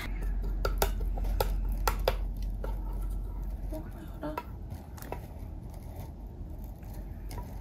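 A plastic spoon clicking and scraping against a stainless-steel pet bowl as wet cat food is scooped up and offered, a quick run of light clicks that thins out after about four and a half seconds, over a low hum.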